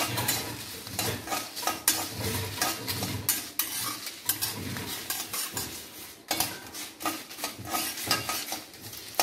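Metal spoon stirring and scraping white sesame seeds and dried red chillies around a kadai as they roast, in repeated short scraping strokes.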